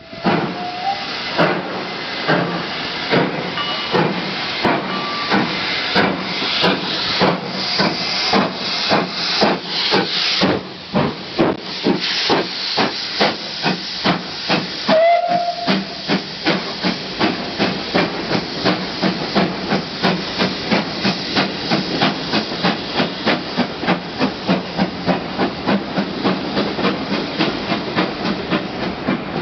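Steam locomotive working hard, its exhaust chuffing in a steady beat that quickens from about two to about two and a half beats a second, with hissing steam throughout. A brief whistle sounds just after the start and again about halfway through.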